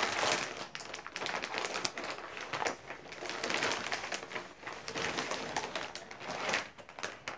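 Plastic poly mailer bag rustling and crinkling in irregular bursts as it is handled and pulled open.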